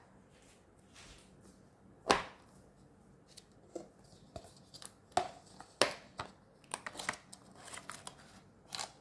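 Cake packaging being opened and handled: scattered sharp clicks and snaps, a loud one about two seconds in and a quicker run of them in the second half.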